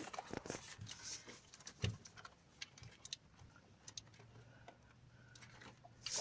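Faint scattered clicks and rustles of hands fiddling with plastic hose clips and parts in an engine bay, with a faint low hum coming in about four seconds in.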